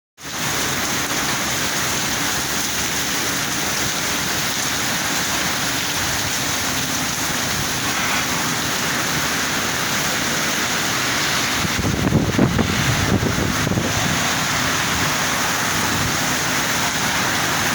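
Heavy rain falling steadily as a dense hiss. About twelve seconds in, a low rumble swells and flutters for roughly two seconds.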